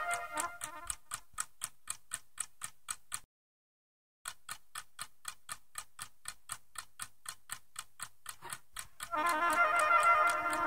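Soundtrack music drops away to a steady ticking of about five clicks a second, which cuts out completely for about a second and then resumes; the full music comes back in near the end.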